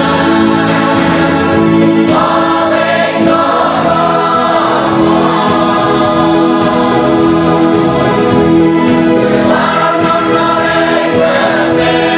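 Male church choir of men and boys singing a hymn in parts, holding long chords that shift to new chords every few seconds.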